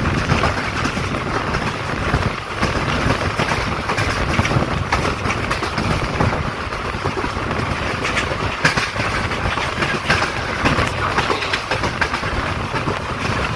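Passenger train running along the track, heard from on board the coach: a steady rumble and rattle with many small clicks.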